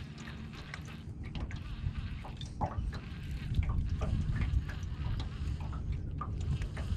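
Small splashes and drips of water lapping against the boat, over wind buffeting the microphone that grows stronger about a second and a half in.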